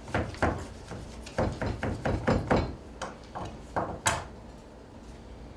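A plastic bag being handled and pulled open, giving a run of sharp crackles and knocks that stop about four seconds in.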